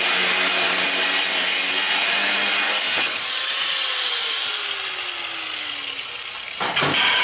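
Angle grinder with a cut-off wheel cutting through the metal bars of a barbecue grill grate: a steady, loud grinding over the motor's hum. About three seconds in the cut ends and the motor winds down, its pitch falling slowly. A short burst of loud knocks comes near the end.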